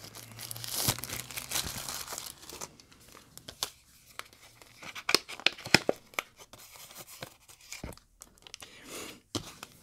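Clear plastic wrapping being torn and peeled off a small cardboard box, with irregular sharp crinkles and crackles.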